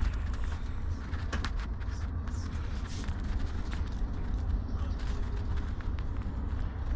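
Steady low rumble of a coach's engine and tyres on the road, heard from inside the passenger cabin, with a few faint clicks and rattles.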